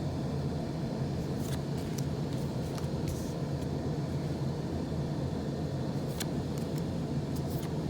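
Steady low background hum with a few brief, faint rustles of a foil booster-pack wrapper being handled.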